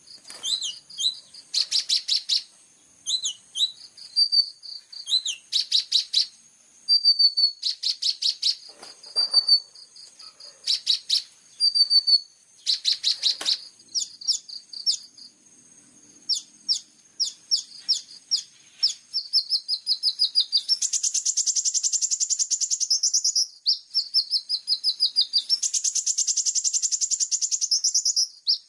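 Kolibri ninja sunbird singing high and fast: quick runs of chirps broken by short whistled notes, then two long, dense trills, each lasting about three seconds, near the end.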